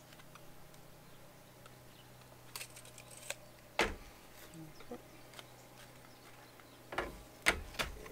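A few sharp clicks and knocks of hand tools and plastic pipe being handled and set down on a wooden workbench, the loudest about four seconds in and three more close together near the end.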